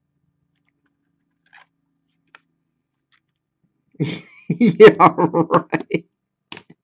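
Sleeved trading card being pushed into a rigid plastic top loader: plastic rubbing on plastic in a quick run of squeaky, stuttering scrapes for about two seconds, with a couple of light clicks near the end.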